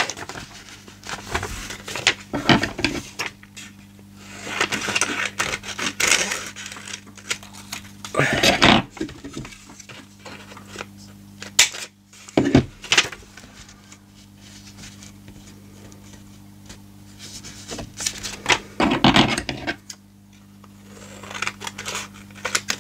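Scissors snipping and paper crinkling as a butterfly motif is cut out of a sheet of craft paper: irregular snips, rustles and small clicks, some louder than others. A steady low hum runs underneath.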